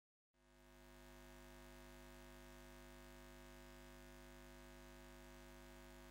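Faint, steady hum made of several held tones at fixed pitches. It fades in just after a moment of silence and holds unchanged, an outro sound bed.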